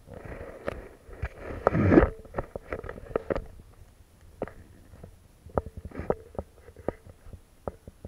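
Handling noise from a toddler grabbing and touching the camera: irregular knocks, taps and rubbing on the microphone, loudest about two seconds in.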